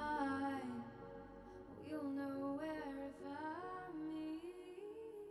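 Slow, soft song: a sung melody gliding between long held notes over sustained accompaniment.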